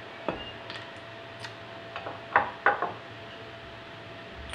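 Steel barn-door hanger strap and roller being handled and fitted against a wooden door: a run of light metal clicks and knocks on wood in the first three seconds, the loudest pair a little past halfway.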